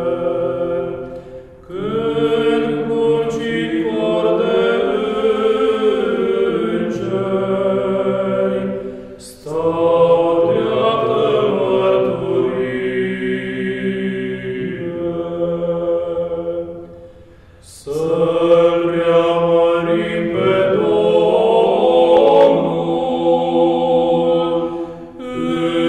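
Background choral music: several voices singing slow chant in long held phrases, with a brief pause between phrases about every eight seconds.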